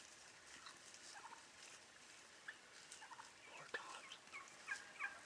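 Wild turkeys calling, faint: a run of short, quick calls that come thicker and closer together through the second half.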